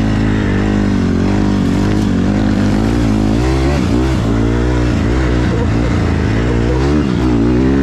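Honda CRF150R's single-cylinder four-stroke engine running as the bike is ridden, its pitch rising and falling with the throttle, dipping and climbing again about four seconds in and near the end.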